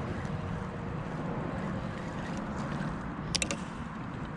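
Wind noise on the microphone over water around a kayak, with a quick cluster of three clicks a little after three seconds in.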